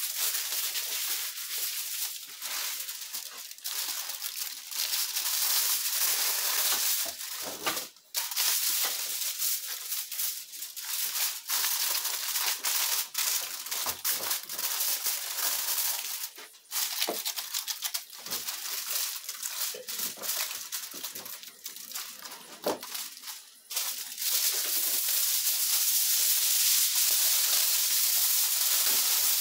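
Aluminium foil crinkling and rustling as it is laid over a metal roasting pan and pressed down around the rim, with many small crackles and a steadier rustle for the last few seconds.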